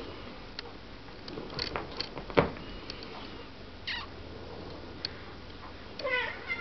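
Domestic cat meowing once near the end, a short call that bends up in pitch, with a brief chirp about four seconds in. Scattered light taps and knocks run through, the loudest a single thump about two and a half seconds in.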